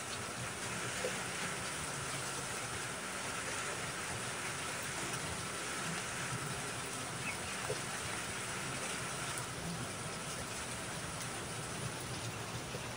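Steady rain falling, with a few faint ticks of drops.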